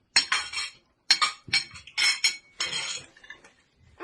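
Metal cutlery clinking and scraping against dishware during a meal: a quick run of sharp clinks with short gaps, dying away near the end.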